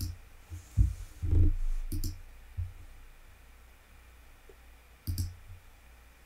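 Computer mouse clicks, each a quick double tick of press and release: one at the start, one about two seconds in and one about five seconds in. A couple of soft low thumps fall around the first second.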